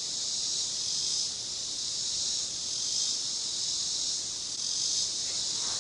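Insects chorusing in a steady, high-pitched buzz that swells and eases slightly.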